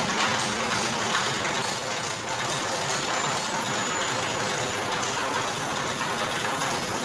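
Steady mechanical running noise from a motor-driven sugarcane crushing machine, an even noise with no clear rhythm.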